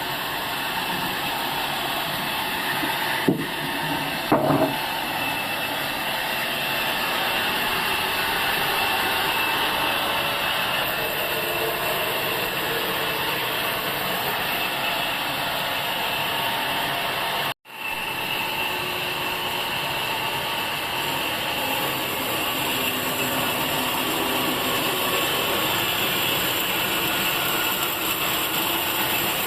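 Sawmill saw running steadily as it cuts through a log, with two sharp knocks about three and four seconds in. The sound cuts out for a moment just past halfway, then carries on.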